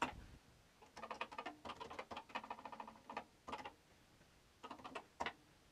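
Keys being pressed on a Commodore PET 4032 keyboard: a quick run of faint clicks over the first half, then a few separate key presses later on.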